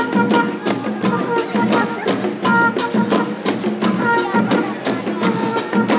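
Traditional Garo dance music: drums keep a quick, steady beat, about three strokes a second, under a short melodic phrase that comes back roughly every second and a half.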